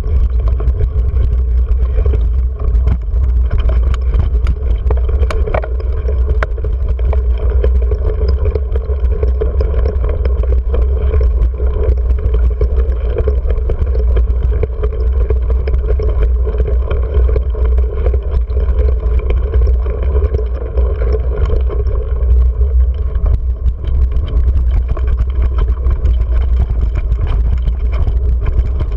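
Wind rumble on the microphone of a GoPro riding along on a mountain bike down a dirt road, with tyre noise on the loose gravel and frequent small knocks and rattles from bumps.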